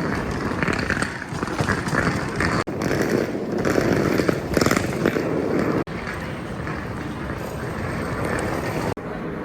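Busy airport terminal hall ambience: a steady wash of background noise and indistinct voices, broken by abrupt cuts about every three seconds.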